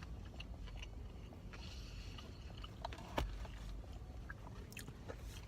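Person chewing and biting food close to the microphone, with small wet clicks and one sharp click about three seconds in.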